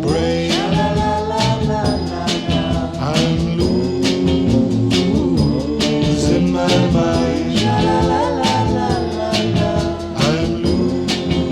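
A 1960s rock band on a mono 45 record playing a section with no words. Drums keep a steady beat about twice a second under melodic lines that bend and slide in pitch.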